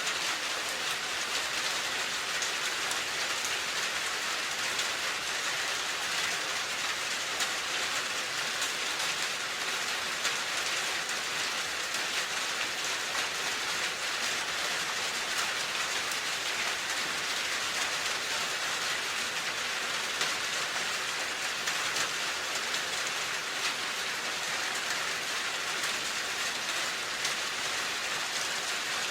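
Steady rain falling, an even hiss of many small drops pattering on a surface.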